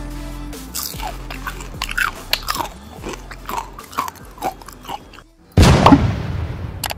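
Crisp fried jackfruit pakoras being bitten and chewed: a series of sharp, crunchy bites over faint background music that fades away. About five and a half seconds in, a loud burst of noise lasting about a second and a half, the end-screen sound effect, cuts off abruptly.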